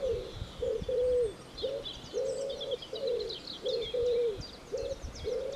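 Birds calling: a low, short note repeated about every half second, with quick high chirps from small birds above it.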